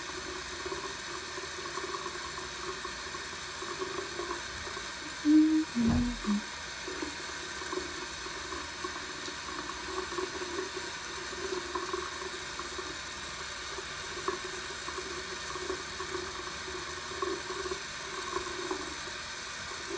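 Tap water running steadily into a bathroom sink. A few short, louder sounds and a knock come about five to six seconds in.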